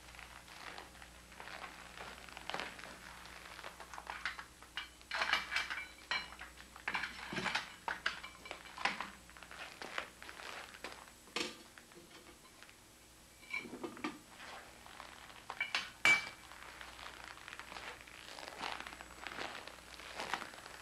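Metal ritual cups, saucers and implements being handled and set down on a table. Scattered clinks and light knocks, a few of them ringing briefly, with the sharpest clink about sixteen seconds in.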